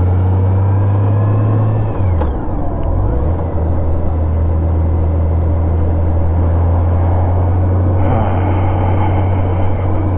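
Touring motorcycle's engine running under the rider, with road and wind noise. About two seconds in the engine note drops and then climbs again as the bike eases off and picks up speed. It then holds steady, and a hiss joins near the end.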